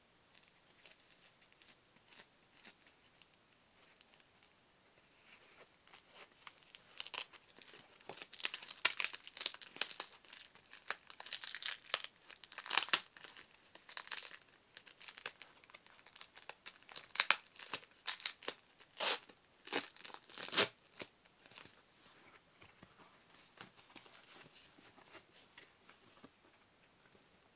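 Foam packing sleeve crinkling and clear sticky tape tearing off it as it is pulled open by hand: a long run of crackles and short rips, loudest and densest through the middle, faint rustling before and after.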